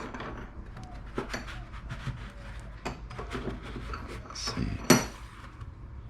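Small pressure-washer pump parts being handled on a bench: a string of light clicks and knocks, with a sharper knock about five seconds in.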